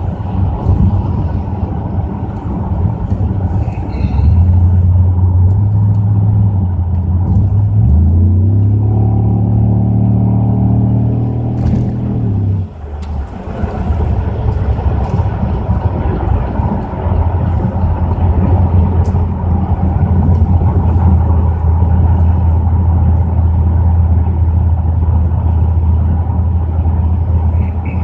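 Pontiac Grand Prix GXP's 5.3-litre LS4 V8 running through a Flowmaster cat-back exhaust, a deep steady drone. It pulls harder about four seconds in, climbs in revs, drops suddenly about halfway through, and then settles into steady running.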